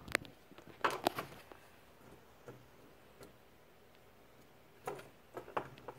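Light clicks and taps from a fidget spinner being handled: a cluster of sharp clicks about a second in, then a few scattered single clicks.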